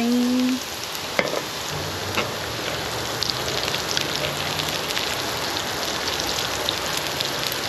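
Chopped garlic frying in hot oil in a pan: a steady sizzle with many small crackles.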